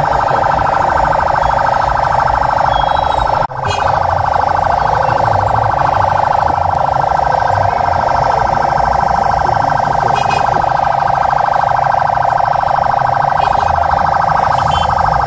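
Electronic siren sounding a fast, steady warble, cutting out for an instant about three and a half seconds in.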